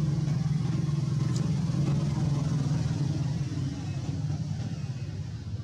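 A motor vehicle engine running steadily nearby as a low hum, easing off a little near the end.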